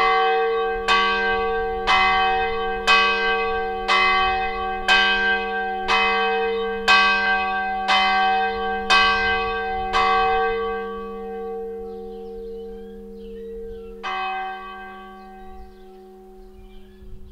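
Church bell tolling, striking about once a second. The strokes stop about ten seconds in, one last stroke comes about four seconds later, and the ringing dies away.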